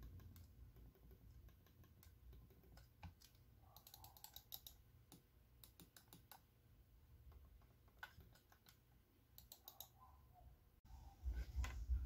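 Computer mouse buttons clicked in faint clusters of several quick clicks, a cluster every second or two. Near the end a louder low rumble of the mouse being handled and picked up.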